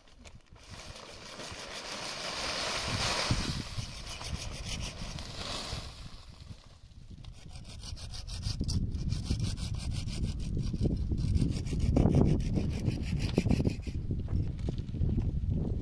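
Steady scraping and rubbing of hand work with a tool, growing louder and deeper about halfway through.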